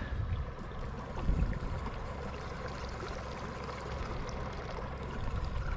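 Lake water lapping and trickling steadily at the edge, with small scattered splashy ticks.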